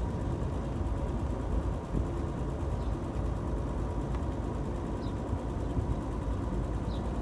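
An old car's engine running, with road noise, heard from inside the cabin as it drives along at low speed. The sound is a steady low hum.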